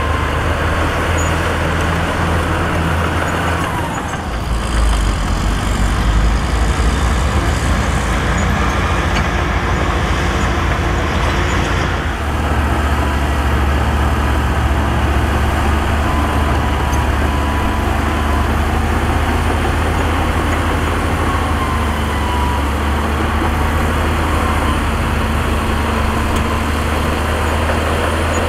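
Heavy diesel engines of earthmoving machinery running steadily with a deep rumble; the sound changes abruptly about four seconds and about twelve seconds in.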